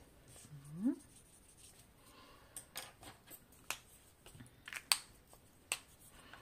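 A series of sharp plastic clicks and taps as plastic marker pens and their caps are handled on a tabletop. A water brush is set down, and a red dual-tip watercolour marker is picked up and readied to draw.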